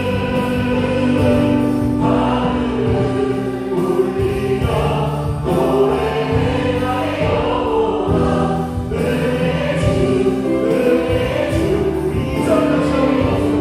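A hymn sung by many voices together, accompanied by a worship band: a Yamaha Montage 8 keyboard, bass guitar and drums.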